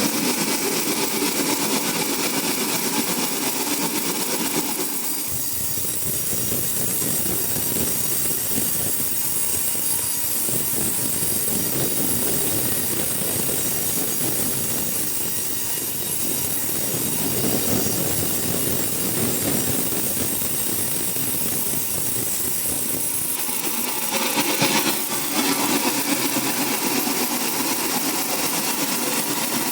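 Sawmill machinery running steadily. From about five seconds in until near the end its sound turns deeper and fuller, then returns to its earlier, brighter running sound.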